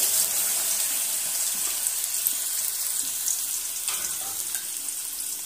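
Diced radish sizzling in hot oil just after it is tipped into the pan: a steady hiss that slowly dies down.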